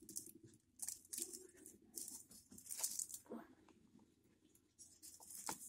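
Tin-foil wrapper of a chocolate bar crinkling in short, irregular bursts as it is handled and folded back.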